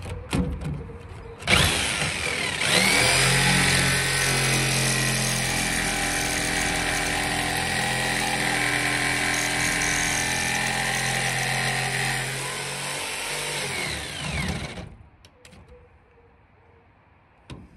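Electric jigsaw cutting the steel roof plate of a narrowboat, trimming the rim of a round flue hole. It starts about a second and a half in, picks up speed a second later, runs steadily while cutting, then winds down with a falling pitch and stops a few seconds before the end.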